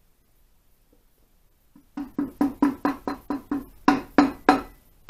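A soft-faced mallet tapping on an Ariel motorcycle engine's crankcase: a quick run of ringing knocks, about four a second, starting about two seconds in.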